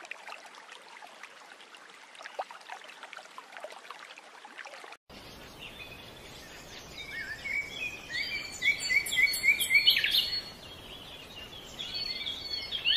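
Faint bubbling and trickling of aquarium water, which stops abruptly about five seconds in. Birds then chirp over a steady hiss, in runs of short quick chirps, loudest in the middle and again near the end.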